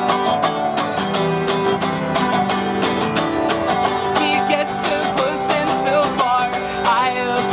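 A band playing a song, led by strummed acoustic guitar, in a passage without lead vocals.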